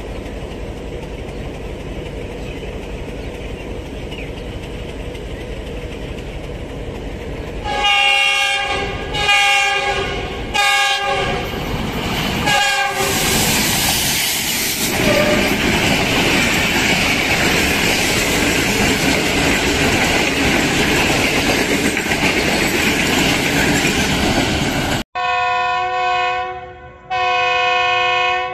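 GE U20 diesel-electric locomotive approaching with a steady engine rumble, sounding its horn in four short blasts, then passing close by with loud engine and wheel noise. After a sudden cut, a second U20 locomotive sounds two longer horn blasts from further off.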